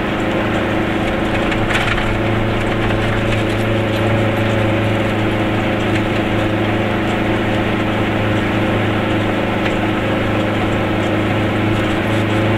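Goggomobil's two-stroke twin engine running steadily under way, heard from inside the small cabin as a constant drone, with a brief scrape about two seconds in.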